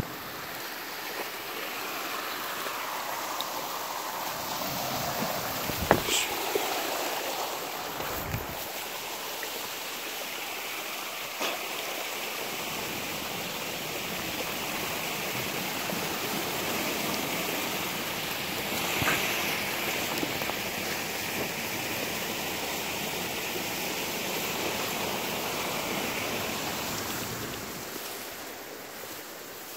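River water running steadily, with a few short sharp sounds on top, the loudest about six seconds in.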